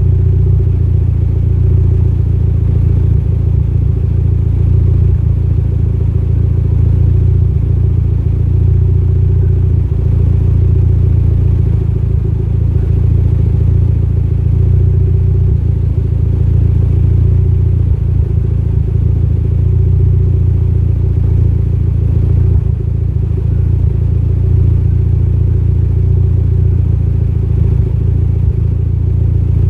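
Mitsubishi Lancer Evolution X's turbocharged 2.0-litre four-cylinder engine idling steadily with a misfire, which the owner puts down to a lean idle mixture.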